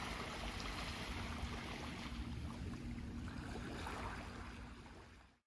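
Seaside ambience of waves and wind noise, fading out about five seconds in.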